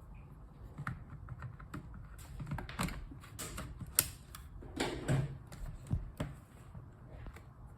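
Typing on a keyboard: irregular key clicks, a few struck harder than the rest.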